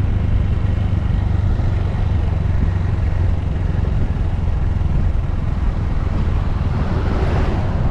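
Honda Grom's 125 cc single-cylinder engine running steadily while riding, a constant low hum. A rushing hiss swells near the end.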